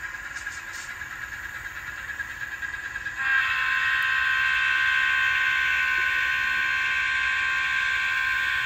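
Sound from an ESU LokSound decoder in an N scale Alco C420 model locomotive, played through its small onboard speaker. About three seconds in, a steady diesel horn chord comes in much louder and is held.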